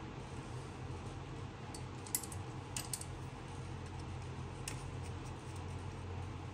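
A few small, sharp clicks of a precision screwdriver working the tiny screws on an opened iPhone 7, the loudest about two seconds in. A steady low hum runs underneath.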